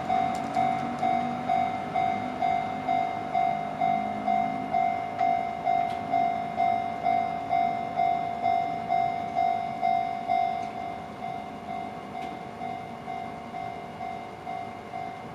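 Japanese level-crossing warning bell ringing in steady strokes about twice a second while a Sunzu Line train runs through the crossing in the first few seconds. The bell grows fainter near the end.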